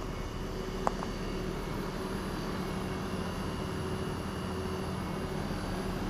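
Day & Night heat pump outdoor units running in cooling mode: steady condenser-fan whoosh over a low, even compressor hum. A single sharp click about a second in.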